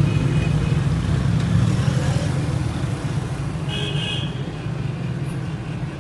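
Steady low rumble of street traffic and engines, with a brief high-pitched tone about four seconds in.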